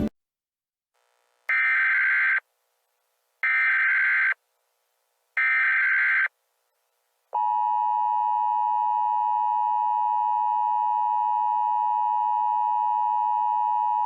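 Emergency Alert System signal: three one-second SAME header bursts of digital data, evenly spaced. About seven seconds in, the steady two-tone EAS attention signal starts and holds, announcing that an emergency message follows.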